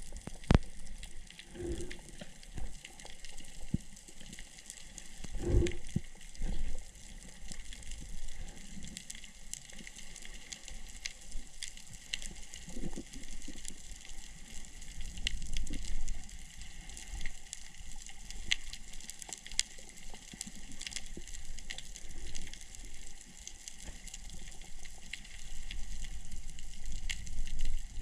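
Underwater sound picked up by a diving camera in its housing: a steady fine crackle of small clicks with low water rush, broken by a few dull thumps, one about half a second in and another around five and a half seconds.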